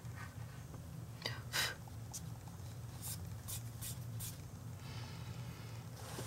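Dry watercolor pencil scratching on mixed media paper in a few short strokes: the loudest about a second and a half in, then four quick ones around three to four seconds in, over a low steady hum.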